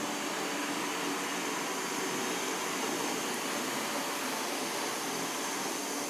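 Ecovacs Deebot T8+ robot vacuum running on high suction as it cleans carpet tiles: a steady, even whir and hiss.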